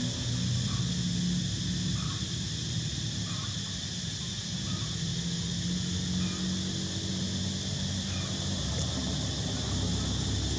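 Steady outdoor background noise: a low, uneven rumble with a constant high-pitched hiss, and no clear calls from the monkeys.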